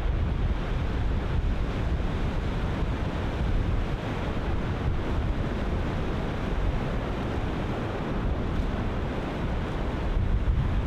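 Ocean surf breaking and washing in a steady roar, with wind buffeting the microphone as a low rumble.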